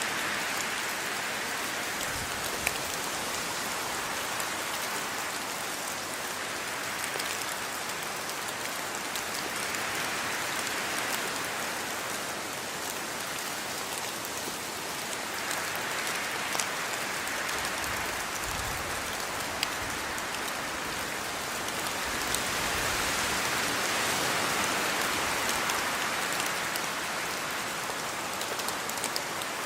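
Steady rainfall: an even hiss of rain on a surface that swells a little louder a few times, with the odd sharper drop tick.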